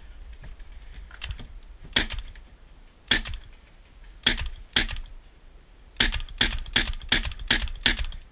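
Paintball markers firing: a string of about eleven sharp pops, spaced out at first, then a quick run of six near the end.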